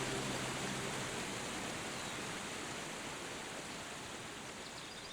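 Steady rush of flowing water, slowly fading, with the tail of background music in the first second.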